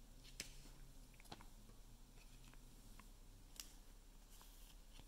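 Near silence, with a few faint clicks and light rustles of trading cards being handled over a low steady hum.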